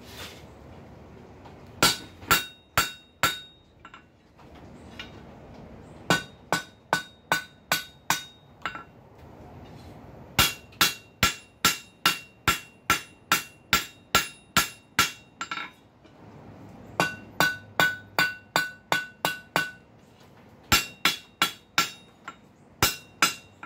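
Ball-peen hammer striking hot steel flat stock on an anvil, in runs of quick blows about two a second with short pauses between. Each blow rings with a clear metallic tone. The smith is rounding the corners of an offset square on the bar's end into a small round.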